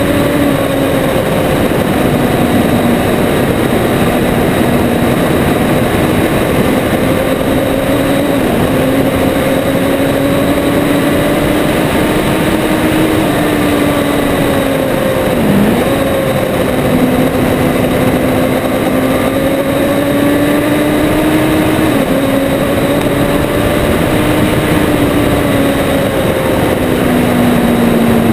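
Motorcycle engine running under way at steady road speed, its pitch drifting gently up and down with a brief dip in revs about halfway through, under heavy wind rush on a bike-mounted camera.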